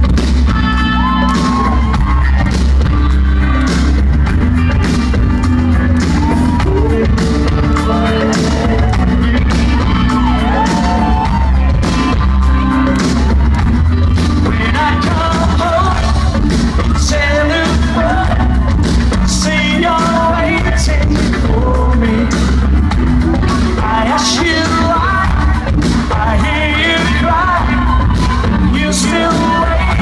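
Loud live rock band playing a pop-rock song: a male lead singer over electric bass, drums, electric guitar and keyboards, with a steady heavy bass line and frequent drum hits.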